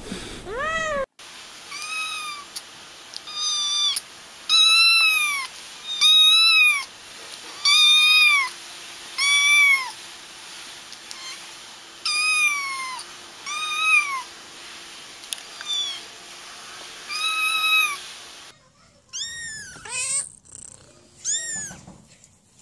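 Kittens meowing: a long series of high meows, each rising then falling in pitch, about one to two seconds apart.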